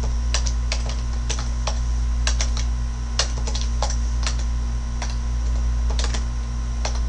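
Computer keyboard being typed on: separate keystroke clicks at an uneven pace, about two or three a second, over a steady low hum.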